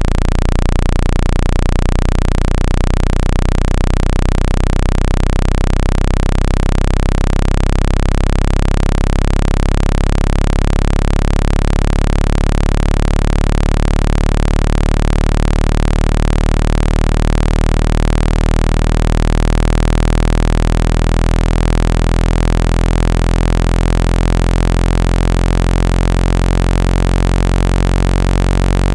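Steady, loud, low synthetic buzzing tone with many overtones: a speaker-cleaning sound played to shake trapped water out of a phone speaker.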